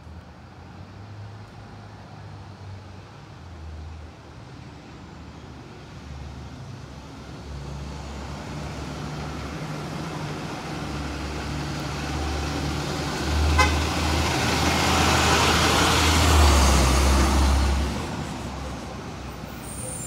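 A 2003 Blue Bird International 3800 school bus approaching and driving past. The low drone of its diesel engine and its tyre noise build up, are loudest about three-quarters of the way through, then fall away. A brief sharp chirp sounds shortly before the loudest point.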